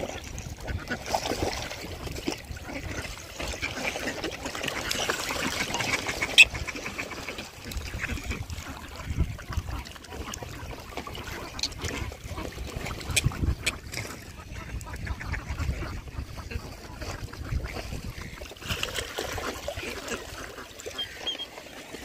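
Ducks quacking amid splashing water as Pacific black ducks and black swans jostle for food at the surface, with one sharp click about six seconds in.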